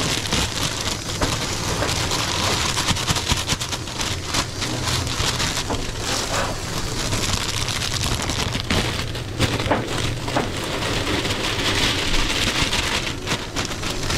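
Restaurant kitchen noise: a steady hiss dotted with many small crackles and clicks over a low hum.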